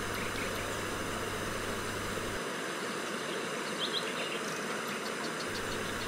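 Steady rushing of a river flowing over stones, with a few faint, short high chirps about four seconds in.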